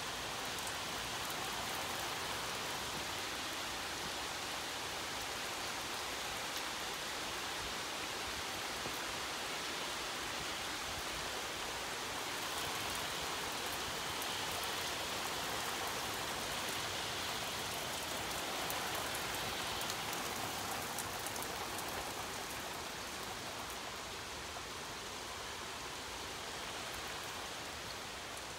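Heavy rain pouring down onto a yard and wooden deck, a dense, even hiss that swells a little midway and eases slightly near the end.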